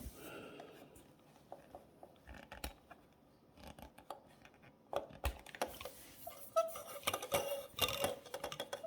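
Scraper working heat-softened old varnish off a veneered wooden dashboard piece: scattered scrapes and light clicks, sparse at first and busier from about halfway.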